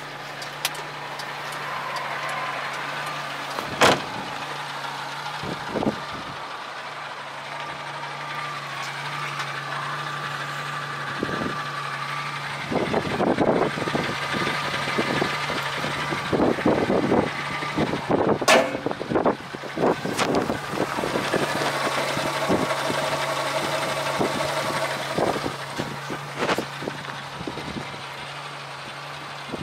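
Small petrol engine of a DFSK mini truck idling with a steady hum, with a few sharp clicks and wind buffeting the microphone in the second half.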